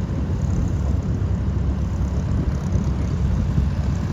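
Boeing B-29 Superfortress's four Wright R-3350 radial engines running, a steady low rumble.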